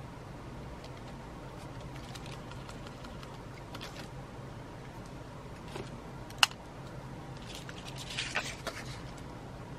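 Quiet handling sounds of a paper towel wiping the tip of a small plastic glue bottle, with one sharp click about six and a half seconds in. A short rustle of paper follows near the end, over a steady low hum.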